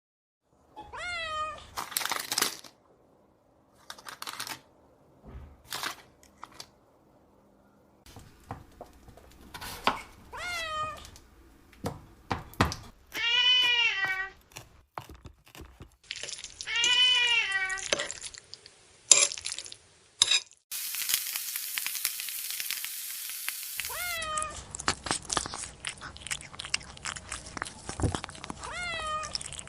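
Domestic cat meowing repeatedly, about six meows including two longer drawn-out ones, among scattered clicks and knocks. About two thirds of the way through, a loud hissing noise runs for about three seconds, followed by a steady background noise with more clicks and a last couple of meows.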